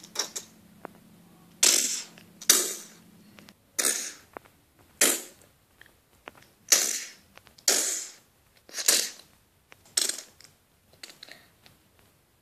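A string of about nine or ten short, sharp gunshot sounds for a toy gunfight, spaced irregularly at roughly one a second.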